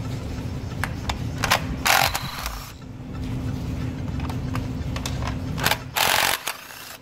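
Ratchet wrench clicking in a few scattered strokes as the ignition-coil hold-down bolts are loosened. Two short rushes of noise come about two and six seconds in, over a steady low hum.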